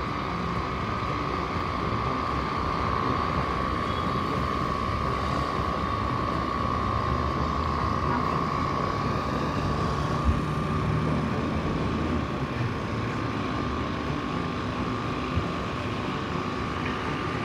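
Steady mechanical running noise with a constant high whine throughout, typical of a running machine on a street or construction site, with a couple of faint knocks.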